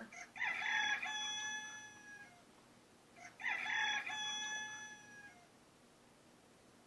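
Rooster crowing twice, each crow a drawn-out cock-a-doodle-doo of about two seconds, the second about three seconds after the first.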